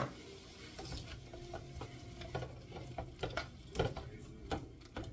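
Mixed vegetables sizzling in a nonstick skillet while being stirred and turned with a cooking utensil, which knocks and scrapes against the pan every half second or so. A sharp click comes right at the start.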